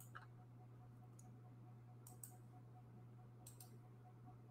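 Near silence with a few faint computer mouse clicks, some in quick pairs, over a low steady hum.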